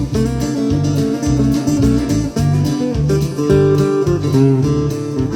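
Instrumental passage of a country-style song played on guitar, with chords and bass notes changing every second or so and no singing.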